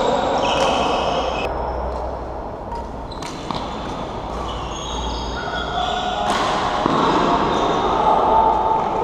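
Badminton rally: several sharp racket hits on the shuttlecock and sneakers squeaking on the court floor, echoing around a large hall with a steady murmur of other play.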